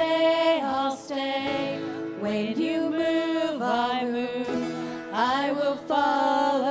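A woman singing a worship song into a handheld microphone with long held notes, backed by a band with electric and bass guitars.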